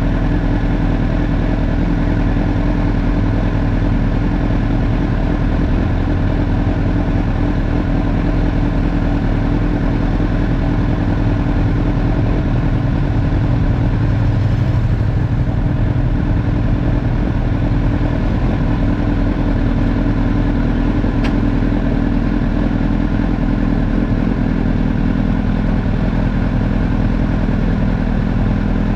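Honda CBR1000RR's inline-four engine idling steadily, heard from a camera mounted on the bike. About halfway through, another motorcycle rides past close by.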